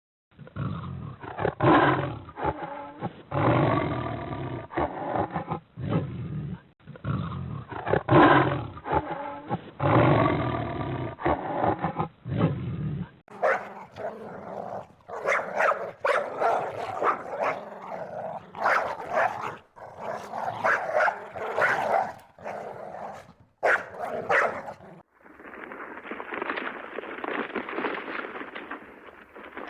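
Animal calls and growls from three different recordings that cut one to the next, about thirteen and twenty-five seconds in.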